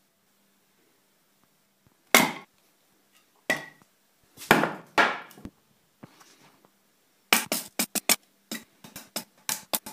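A hatchet chopping firewood on a wooden chopping block: four separate sharp blows, then a fast run of many quick blows near the end.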